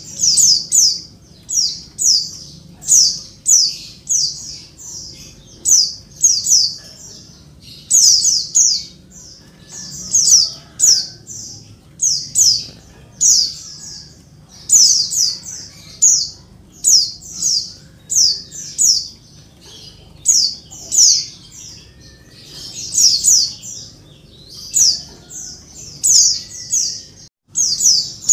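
Female white-eye (pleci) calling busily: high, thin chirps that each drop quickly in pitch, in tight clusters of two to four notes repeated about once a second. It is the excited call a hen gives to draw males into answering and singing.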